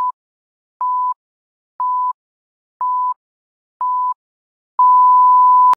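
Countdown timer beeping: five short, steady mid-pitched beeps, one a second, counting down 5 to 1, then a longer, louder beep of about a second that marks zero, the sync point to start the episode.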